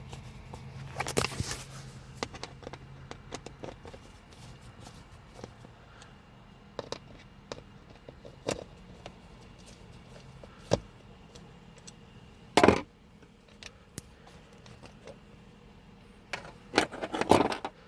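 Scattered clicks and short scraping rattles of a Phillips screwdriver working the screws out of a pickup's plastic center console latch assembly and the parts being handled. There are louder scraping bursts about a second in, past the middle, and just before the end.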